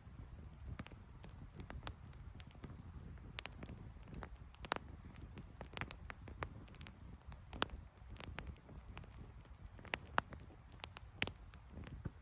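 Wood campfire crackling, with irregular sharp pops scattered throughout over a steady low rumble.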